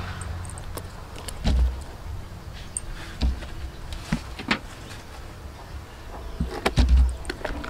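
Food-handling sounds: green stalks laid into a hollowed banana trunk and a whole roasted fish lifted off a metal tray and set into the trunk. Irregular taps and clicks with a few soft thuds, the loudest about seven seconds in.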